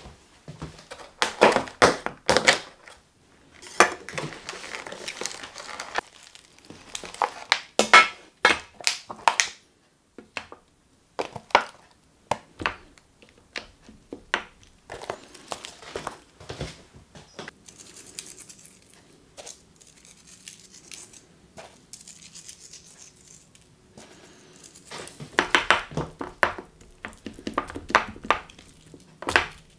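Plastic meat packaging crinkling and tearing as pork chops are unwrapped, with clusters of crackles and small clicks as the chops are handled and laid in a stainless steel tray. A faint hiss partway through, with more crinkling and handling near the end, as the chops are seasoned with salt flakes and black pepper.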